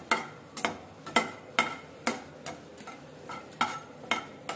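A steel spoon scraping and clinking against a kadai, about two strokes a second, as whole spices are stirred in warm oil, over a faint sizzle.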